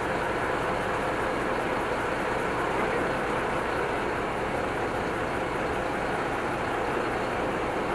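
Steady rushing noise with faint voices in it.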